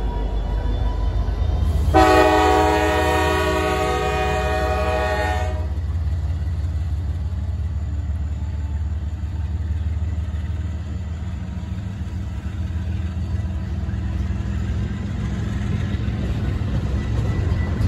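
Freight train horn sounding one long blast of about three and a half seconds, starting about two seconds in, over the steady low rumble of diesel locomotives and then freight cars rolling past.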